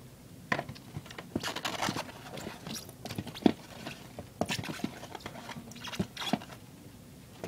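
Hands handling an airsoft gun's accessories and packaging: irregular clicks, crinkles and rustling, starting about half a second in.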